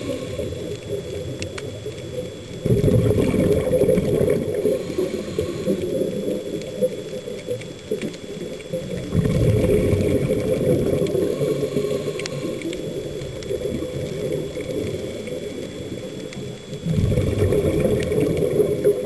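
Scuba diver's breathing heard underwater: three louder bubbling rushes of exhaled bubbles from the regulator, roughly every seven seconds, with a quieter low rushing between them.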